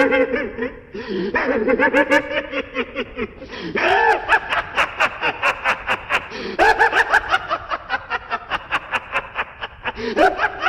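A man's maniacal laugh, Light Yagami's 'Kira laugh' in a dubbed version, going in long runs of rapid, rhythmic cackling pulses broken by brief pauses for breath.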